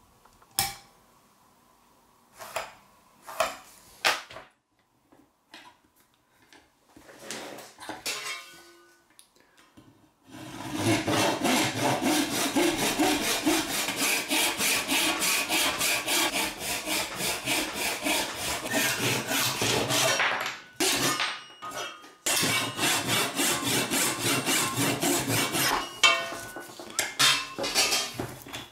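Hand saw cutting through a dark wooden handle block clamped in a small bench vise, in steady strokes of about two a second, pausing once for a couple of seconds. Before the sawing starts there are scattered knocks and clicks from handling the work in the vise.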